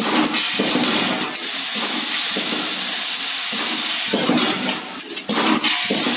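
Packaging machine running: a loud, steady hiss with a brief dip about five seconds in.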